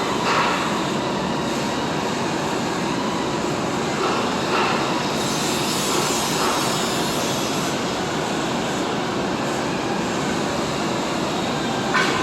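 TIG welding arc running with a steady hiss, swelling briefly a few times.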